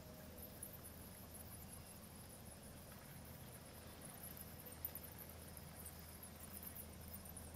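Faint, continuous high-pitched chittering of small animals, with a steady low hum underneath.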